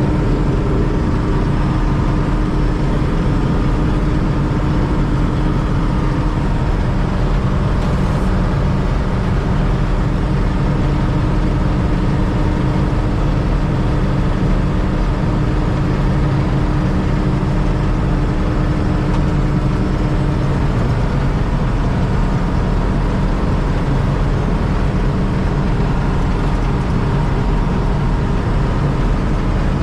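John Deere 6600 combine running steadily under harvest, with its engine and threshing machinery making a loud, even hum. One steady tone within it stops about two-thirds of the way through.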